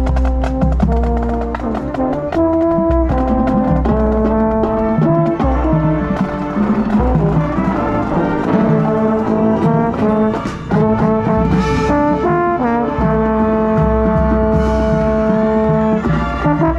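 A high school marching band's brass playing full held chords with drum hits, heard up close from within the band. The chords change about once a second at first, then are held longer.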